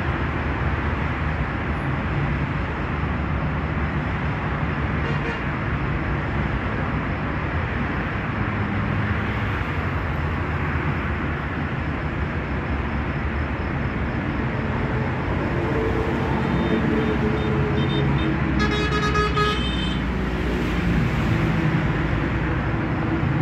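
Steady outdoor road-traffic noise. A short high-pitched tone sounds about nineteen seconds in.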